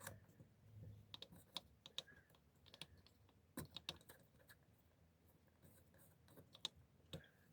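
Faint, scattered light clicks and taps of small carburettor parts being handled and fitted together by hand, with a couple of sharper clicks about halfway through and near the end.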